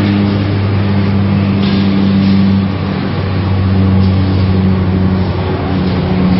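Steady drone of heavy machinery: a green-waste shredder at work, with a wheel loader's engine running close by. The drone is briefly a little quieter about three seconds in.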